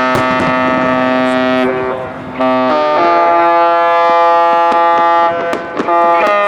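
Ships' typhon horns sounding long, held chords that change pitch in steps, breaking off briefly twice.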